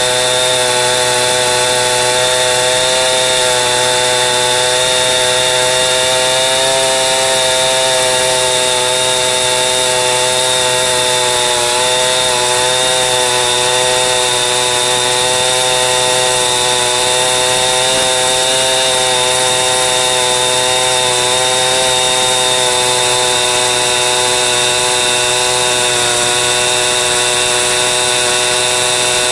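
Chainsaw ripping a birch log lengthwise along the grain, running steadily at high revs under load, its pitch wavering slightly as the cut goes on.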